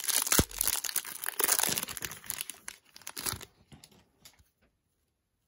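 Foil wrapper of a 2020 Bowman baseball card pack crinkling and tearing as it is ripped open by hand. The crinkling stops about three and a half seconds in, leaving a few faint ticks.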